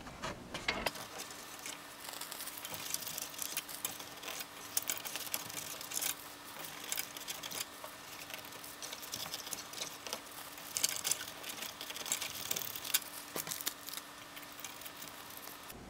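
Fast, irregular scratchy rubbing and small clicks of a prep pad wiping old thermal compound off a computer heatsink, with a faint steady hum underneath.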